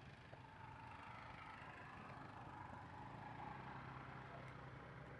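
Faint, steady engine hum, swelling a little in the middle, typical of a distant vehicle.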